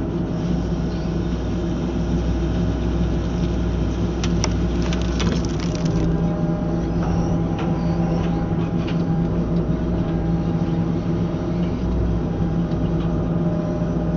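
CTR 42 IP hydraulic ground saw (bucksaw) running on a tracked excavator, over the excavator's steady engine drone. A cluster of sharp clicks comes about four to six seconds in.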